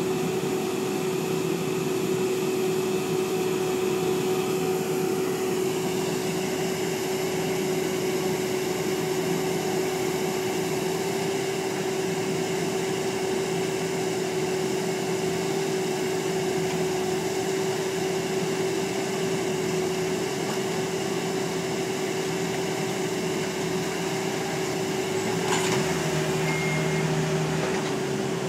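Horizontal directional drilling rig running: a steady engine and hydraulic drone with a constant hum. About 25 seconds in, a single sharp knock stands out over it.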